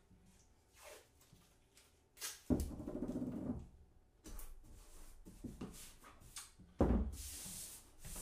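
Handling noises as a large print and its painter's tape are worked by hand on a table: light scuffs, with two louder rasping, rustling bouts, one about two and a half seconds in and one near the end.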